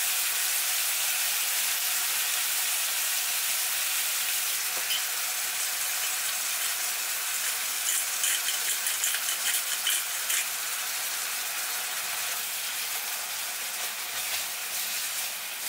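Minced pork sizzling steadily in a nonstick wok with soy sauce. A run of sharp clicks comes about eight to ten seconds in as pepper is added, and a silicone spatula stirs the meat near the end.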